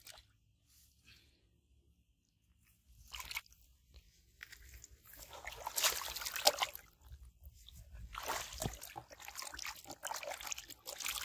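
Live fish thrashing in a plastic basin of shallow water, splashing and slapping in irregular bursts: a short one about three seconds in, a longer spell from about four and a half to seven seconds, and another from about eight seconds on.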